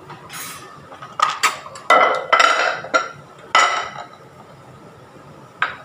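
Kitchenware and glass containers clinking and clattering as they are moved about on a counter or shelf: a run of sharp knocks with brief ringing, busiest from about one to four seconds in.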